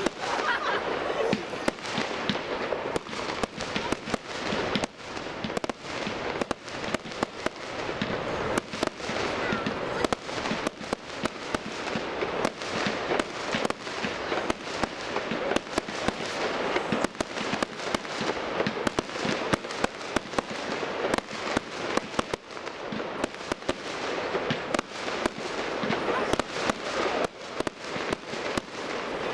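Aerial firework display: a rapid, irregular run of bangs from shells bursting overhead, several a second with no let-up.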